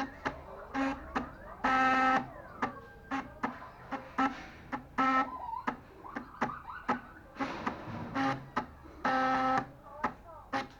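Stepper motors of a small homemade CNC machine stepping through short moves: a string of buzzing tones all at the same pitch, most brief and two lasting about half a second, with clicks in between.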